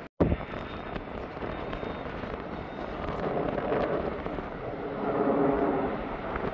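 Jet airliner engine noise, a rough rushing sound that starts abruptly and swells louder about halfway through before easing slightly.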